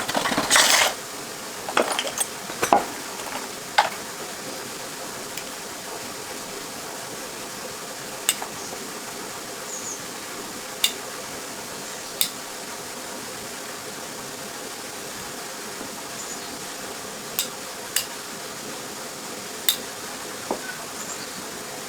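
Small metallic clinks and knocks, like hand tools or loose metal parts handled on a tractor under repair. A burst of them comes in the first few seconds, then single sharp clicks every few seconds over a steady hiss.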